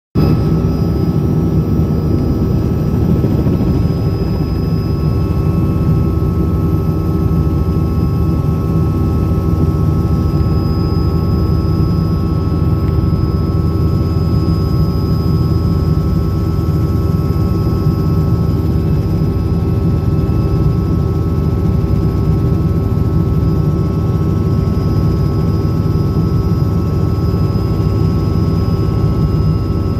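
Helicopter turbine and rotor running steadily under power, heard from inside the cabin as it lifts off and climbs: a loud, even low rumble with a steady high turbine whine on top.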